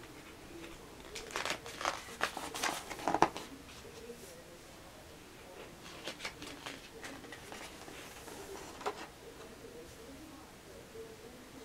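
Glossy pages of a tour book being turned and smoothed by hand, the paper rustling and crinkling in bursts, loudest between about one and three seconds in with a sharp snap near the end of that burst, then again around six seconds in.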